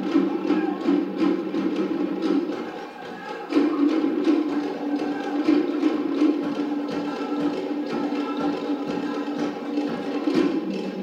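Cook Islands drum ensemble playing a fast rhythm, with rapid strikes on wooden slit drums (pate) over a steadier low drum tone. It falters briefly about three seconds in and picks up again at full strength.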